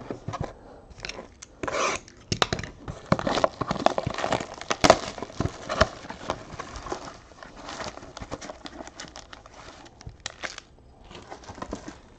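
Plastic shrink wrap crinkling and tearing as a box of trading cards is unwrapped and opened, densest in the first half. Then sparser rustles and light taps as the foil card packs are taken out and stacked.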